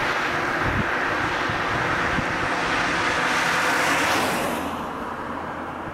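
A car driving past on the road: tyre and engine noise builds as it approaches, peaks about four seconds in as it passes close by, then fades quickly. Wind buffets the microphone.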